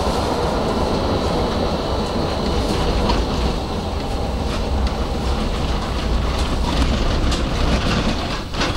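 Tram heard from inside the car, running along street track: a steady rolling rumble with wheel and rail noise and a few short clicks. The sound drops a little just before the end.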